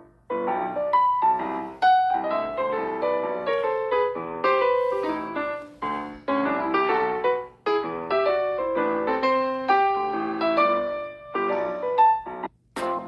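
A Samsung phone ringtone: a piano-like melody of quick notes in short phrases broken by brief gaps.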